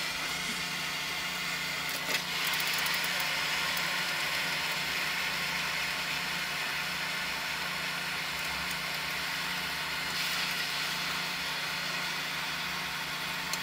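Water in a stainless steel saucepan of sweet corn kernels heating on the stove and coming up to the boil, with a steady hiss and bubbling that grows a little louder about two seconds in. A steady low hum runs underneath.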